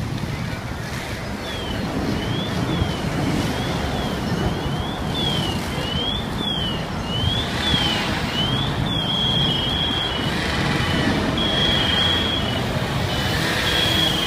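A high electronic siren sweeping up and down about one and a half times a second, switching about two-thirds of the way through to a two-tone hi-lo pattern, each note held about a second. Under it runs a steady rumble of engines and traffic.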